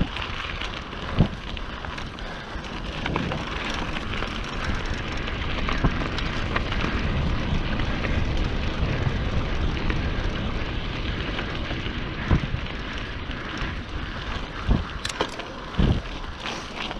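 Mountain bike riding along a trail: a steady rush of tyre and wind noise on the camera microphone, broken by a few sharp knocks, one about a second in and several near the end.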